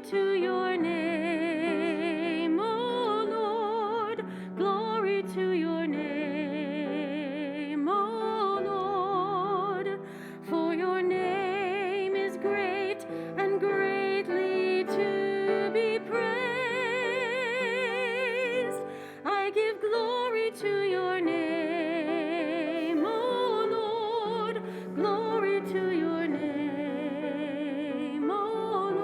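A slow hymn sung with strong vibrato over sustained keyboard accompaniment, in long phrases with short breaks between them.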